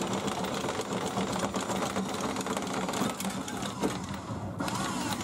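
A small motor running steadily with a fast mechanical rattle and a constant low hum.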